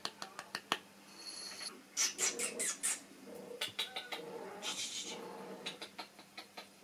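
A female cat in heat crying, a drawn-out wail in the second half. Before it come clicks and rustling as things are rummaged through.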